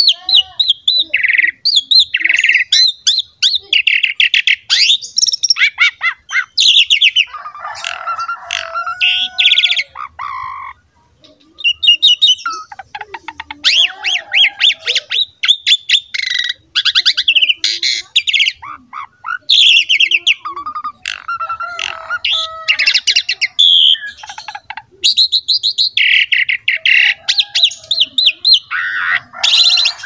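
Asian pied starling (jalak suren) singing continuously: fast runs of chattering, rattling and whistled notes, with a brief pause about eleven seconds in.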